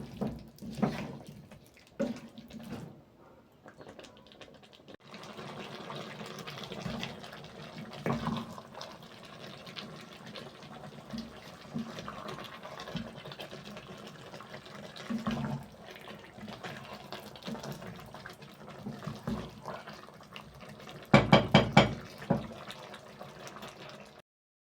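Water running from a tap into a sink, getting louder about five seconds in, with scattered knocks and a quick run of loud knocks near the end.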